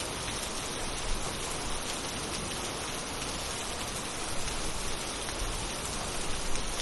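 Steady rain falling, an even hiss with no tones in it.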